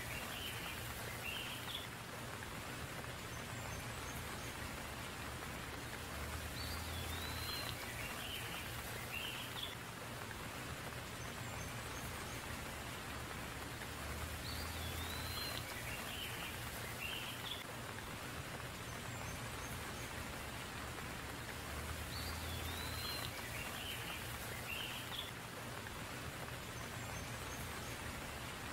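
Steady rain falling, with drops pattering on leaves and surfaces. A bird's short call of a few chirps comes through the rain about every eight seconds, each time the same.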